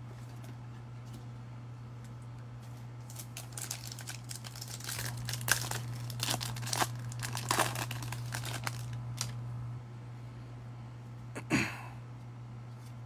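Foil wrapper of a baseball card pack crinkling and tearing as it is ripped open by hand, in a run of crackles from about three seconds in until about nine. Near the end comes one short swish, and a steady low electrical hum runs underneath.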